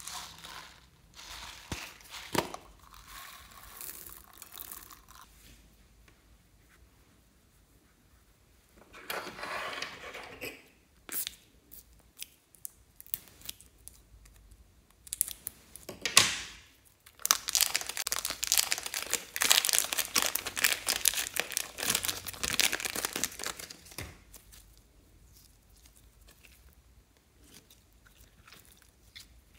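Slime and its packaging handled by hand: a small plastic slime tub opened, a plastic piping bag snipped with scissors, and white slime squeezed and kneaded. This gives runs of small clicks and crackles, with the longest and loudest run past the middle.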